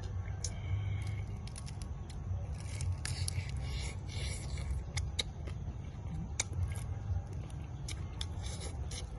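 Close-up eating sounds: crunching, smacking and scattered crisp clicks as a deep-fried salmon head is bitten into and picked apart by hand, over a steady low rumble.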